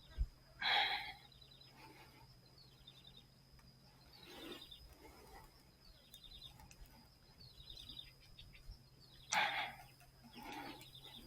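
Faint animal calls: a few short calls about a second in and near the end, with several quick chirping trills between them.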